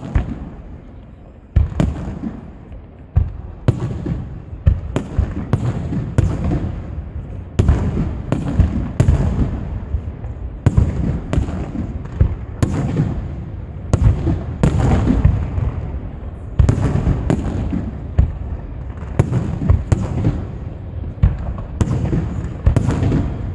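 Aerial firework display: shell bursts go off in a rapid, irregular string of sharp bangs, about one to two a second, over a continuous low rumble of booms. It is quieter for the first second and a half, then the bangs come thick and fast.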